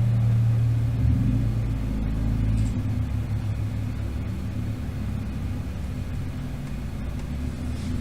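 Low, steady rumble of a motor vehicle's engine, shifting in pitch a couple of times.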